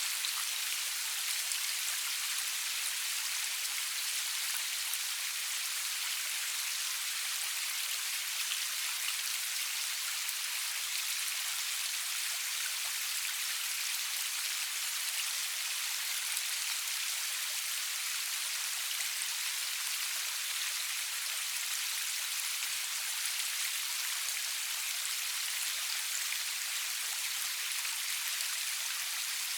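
Steady rainfall: an even, unbroken hiss of drops with fine scattered patter, no thunder.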